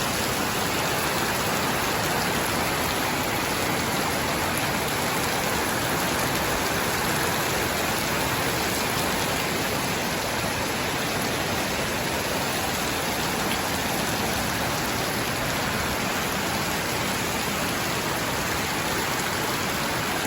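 Steady, heavy rain falling, an even hiss with no breaks.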